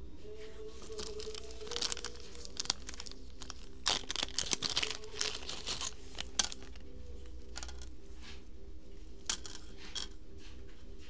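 Small clear plastic zip bag crinkling and crackling as it is handled and opened and the bracelet pulled out, in a dense run from about two seconds in to about six seconds in, with a few more crackles near the end.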